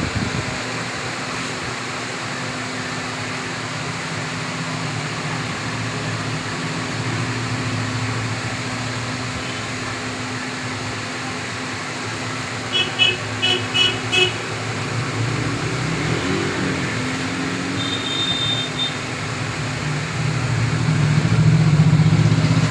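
Street traffic running steadily. About halfway through a horn gives four quick short beeps, and a single short beep comes a few seconds later. Near the end a vehicle passes close and its rumble swells.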